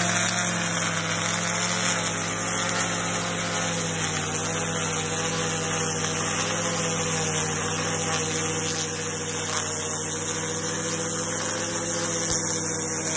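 Small gas engine of a handheld lawn edger held at full throttle, a steady high drone whose pitch wavers slightly as the head cuts along a concrete curb.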